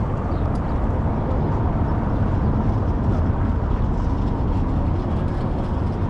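Wind buffeting an action camera's microphone: a steady, uneven low rumble.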